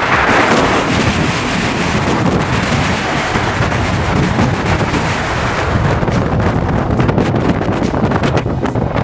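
Strong wind buffeting the microphone, a loud, gusty rumble and roar with no letup.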